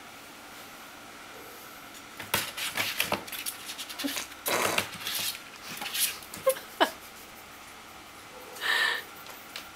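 A kitten scrambling down off a wire playpen: the wire mesh rattles and clinks in a burst of clatter and scraping that starts about two seconds in and runs for several seconds, with two quick squeaks near the end of it. A short breathy noise follows near the end.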